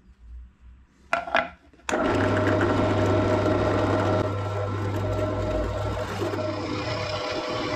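A small electric power tool, of the kind used on plywood in a workshop, switches on about two seconds in and runs steadily with a low hum. Just before it starts there are two short sharp knocks.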